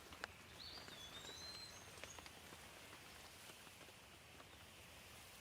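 Faint steady rain with scattered drips, and a bird whistling a short phrase of a few gliding notes about half a second to two seconds in.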